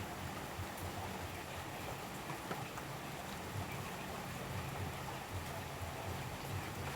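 Steady heavy rain falling in a tropical rainforest, an even hiss with scattered drips and a low rumble underneath.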